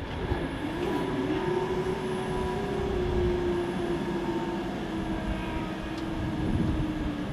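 Level crossing barriers being raised by their mechanism after a train has passed: a steady mechanical hum with a held tone and low rumble underneath.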